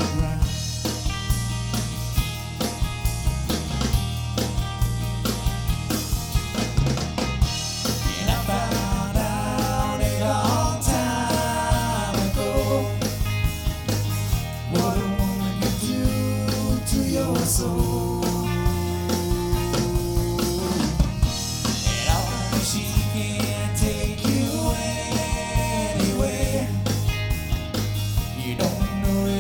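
Live rock band playing: drum kit keeping a steady beat under bass and guitars, with a melodic line bending in pitch over the top.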